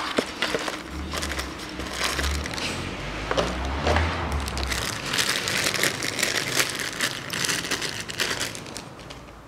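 A cardboard box being opened by hand, then a thin plastic bag crinkling as a new thermostat is unwrapped from it, with dense, crackly rustling thickest in the second half.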